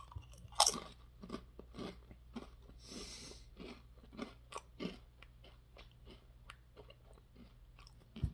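A person biting into a thin Lay's potato chip and chewing it: a sharp crunch about half a second in, then a run of crisp crunches that fade out over the next few seconds.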